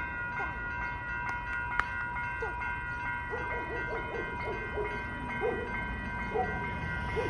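Railroad crossing warning bell ringing steadily while the crossing gate arms come down, with a couple of sharp clicks about a second and a half in.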